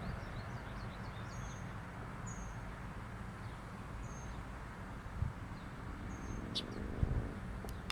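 Birds chirping in short, high, scattered notes over a steady low background rumble, with two brief soft thumps.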